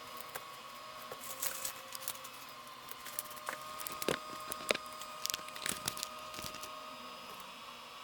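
Irregular light clicks, taps and scrapes of hands working on a phone's small plastic, glass and metal parts, over a faint steady background hum.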